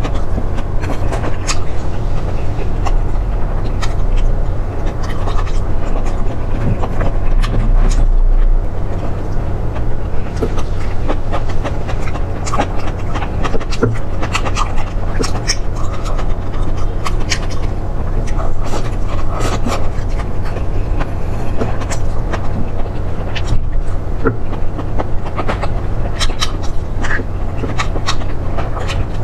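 Close-miked chewing and eating: many irregular sharp crunches and mouth clicks over a steady low rumble.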